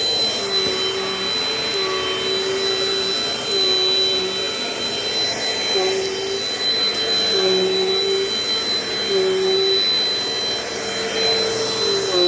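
Vintage Dirt Devil Dynamite Plus vacuum cleaner running steadily. Its motor's high whine holds constant, while a lower hum shifts slightly in pitch every second or so.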